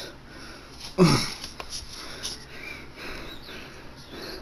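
A man's short, sudden vocal exclamation about a second in, falling in pitch, followed by his soft breathing and sniffing close to the microphone.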